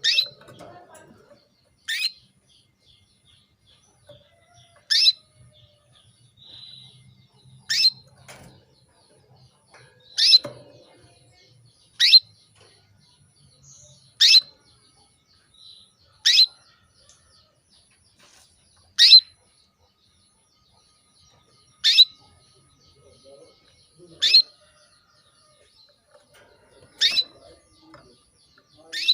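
Female canary giving short, sharp calls, each a quick downward sweep in pitch, repeated about every two to three seconds, about a dozen in all. These are the calls of a hen in breeding condition calling to a male.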